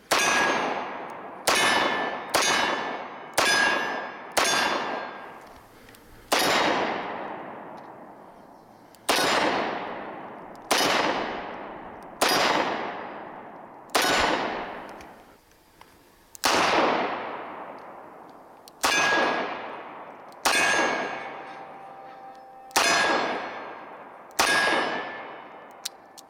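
Taurus 605 snub-nose .357 Magnum revolver firing single shots, fifteen in all: the first five about a second apart, the rest spaced one and a half to two and a half seconds. Each shot is sharp and dies away over a second or two, and several carry a clear ringing tone.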